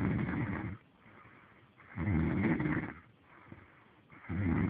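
A man snoring, one loud snore on each breath about every two and a half seconds: one at the start, another about two seconds in, and a third beginning near the end.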